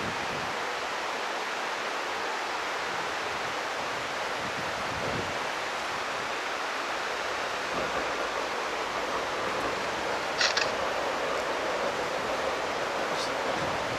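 Steady rushing of a river flowing under a railway bridge. A brief sharp, high sound comes about ten seconds in, and a fainter one near the end.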